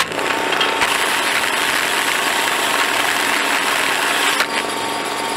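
Wood-Eze firewood processor running steadily, with a thin steady whine and a few sharp knocks.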